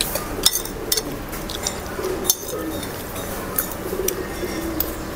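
Metal spoon and fork clinking and scraping against a ceramic plate of food, with about five sharp clinks spread through.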